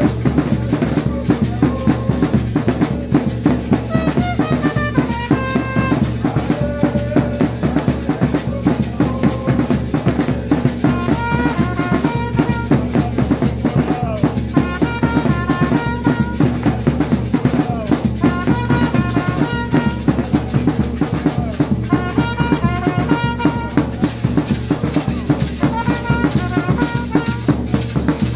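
A drum troupe playing a fast, steady beat on large double-headed drums and bass drums, with a trumpet playing short repeated melodic phrases over the drumming every few seconds.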